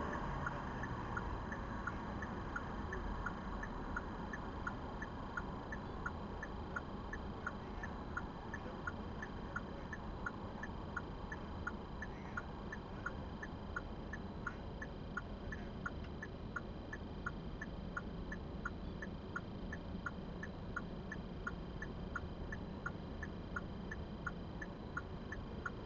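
A car's turn-signal or hazard-light indicator clicking steadily, about two clicks a second, over the low hum of the car's cabin.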